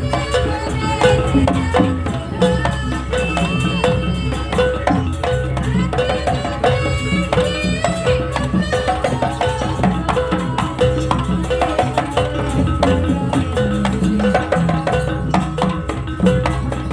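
Live Javanese jaranan gamelan music: drumming with a steady repeated metallic note and a wavering high melody over it, playing continuously.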